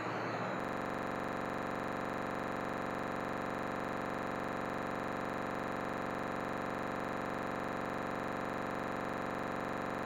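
A steady, unchanging electronic buzz that starts suddenly under a second in and holds at one level, with no speech or music.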